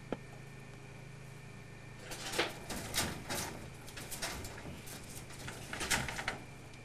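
Angora rabbit moving about in hay on a wire cage floor: a sharp click right at the start, then from about two seconds in a run of scratchy rustling that stops shortly before the end. A steady low hum underneath.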